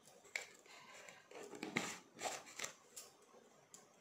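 A few short, irregular clicks and rustles, the loudest a little under two seconds in.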